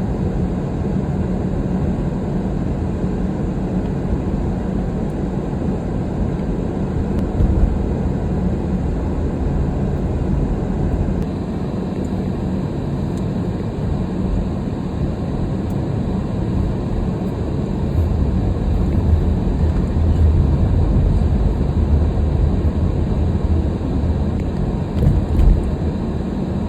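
Steady low rumble of a vehicle driving, with a faint hum under it, cutting off suddenly at the end.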